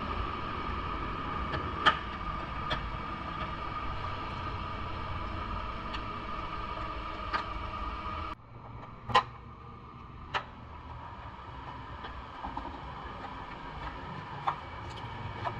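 Steady workshop hum with a few sharp knocks scattered through it; the hum cuts off suddenly about eight seconds in and a quieter background follows.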